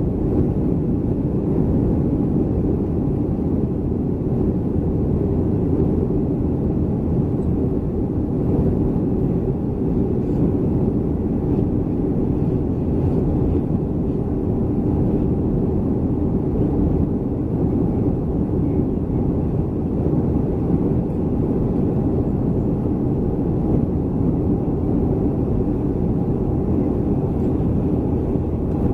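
Steady engine and airflow noise of a Boeing 737-300 with its CFM56 turbofans, heard inside the passenger cabin: an even low rumble with no changes.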